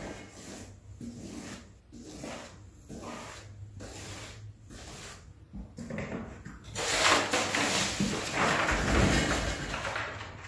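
Glue brush scrubbing glue onto the floor in regular strokes about one a second, then a louder rustling and crinkling as a sheet of brown paper is laid into the glue and pressed down by hand.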